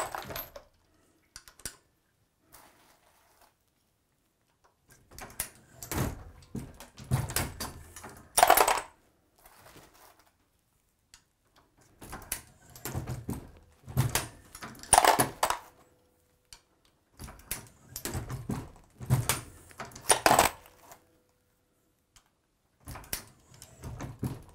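Progressive reloading press worked by hand while loading 22 Nosler rounds: repeated metallic clacks and clatter of the ram stroking, the shell plate indexing and brass cases and bullets being set in. The noise comes in pairs of bursts about a second and a half apart, with pauses of a few seconds between pairs.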